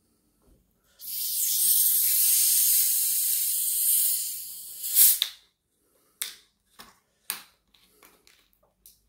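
Screw cap of a plastic bottle of fizzy orangeade being twisted open: the carbonation hisses out steadily for about three and a half seconds, fading, then a sharper burst of hiss as the cap comes free about five seconds in. A few short clicks follow.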